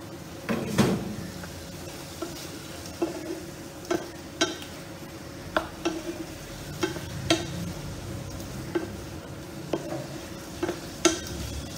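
Spatula stirring pointed gourd pieces through a sizzling yogurt-spice gravy in a pan on an induction cooktop, at the sauté stage. Irregular knocks and scrapes of the spatula against the pan sound over the steady sizzle, with a louder clatter about a second in and again near the end.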